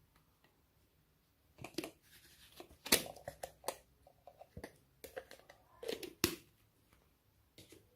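Irregular sticky clicks, snaps and crinkles from close-up hand work with slime and its materials, starting about a second and a half in.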